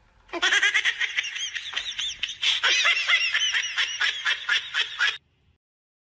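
High-pitched laughter in rapid, repeated bursts for about five seconds, cutting off abruptly about a second before the end.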